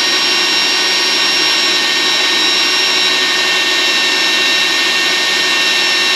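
Electric drill running steadily at full speed with a constant whine, drilling out a broken, badly rusted screw.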